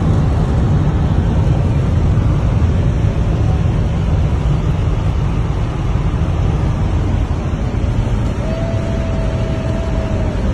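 Steady low rumble of road and engine noise inside a pickup truck's cab at highway speed. About two seconds before the end, a single steady mid-pitched tone sounds for just under two seconds.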